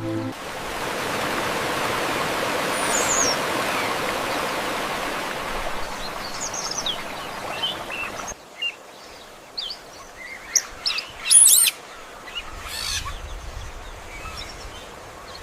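Steady rushing water with birds chirping over it; about eight seconds in it cuts abruptly to quieter birdsong with scattered chirps, the loudest about eleven seconds in.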